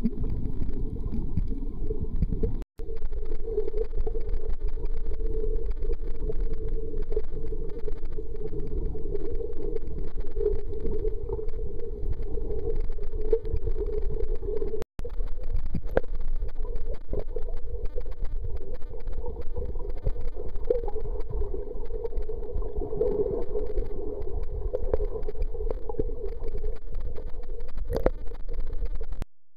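Steady, muffled underwater rumble of water moving over a submerged camera, cutting out briefly three times at edits.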